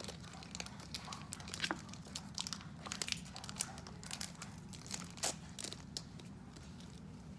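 Irregular crinkling and crackling of a Pokémon booster pack and its cards being handled, with many short, sharp clicks.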